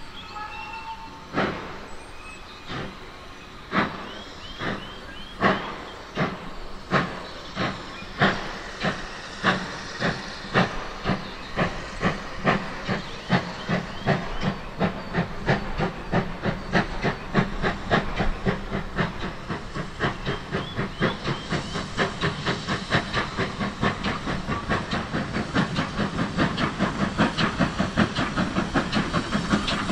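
GWR small prairie 2-6-2 tank engine 5542 starting away with a train. Its steam exhaust beats begin slow and heavy, about one a second, and quicken steadily to several a second as it gathers speed. Steam hisses from the cylinders throughout.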